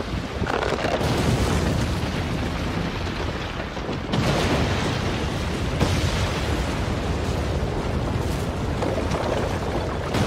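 Explosion sound effect: a long, dense blast that goes on without a break, with a louder surge about four seconds in and a sharp crack just before six seconds.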